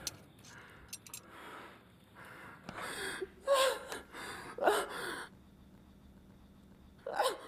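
A man gasping and groaning in pain and fear: short sharp breaths and strained cries about three seconds in and again near five seconds, then another quick gasp near the end.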